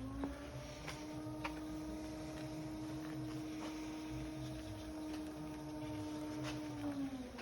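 Steady whine of a small machine running, most likely the mini excavator's engine-driven hydraulic system, with its pitch sagging briefly near the end before it recovers. A few faint clicks sound over it.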